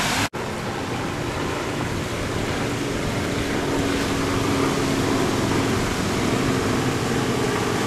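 Steady rush of breaking surf and wind on the microphone, with a faint steady hum joining about three seconds in. The sound drops out briefly near the start.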